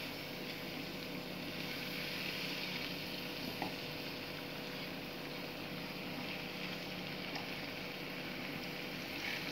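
Crushed garlic and ginger sizzling gently in hot oil in a frying pan, a steady hiss while they brown, with a faint steady hum beneath it.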